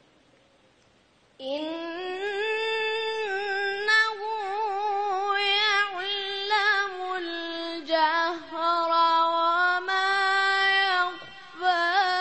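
A teenage boy's high voice reciting the Quran in melodic tajweed style. It starts about a second and a half in and holds long, ornamented notes whose pitch wavers, with brief breaks for breath near the end.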